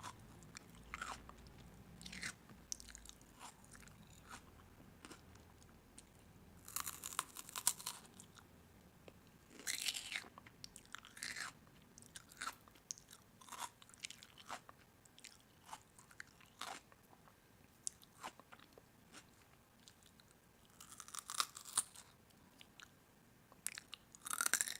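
Crisp food being bitten and chewed: scattered crunching in short clusters, with sharp single clicks between them.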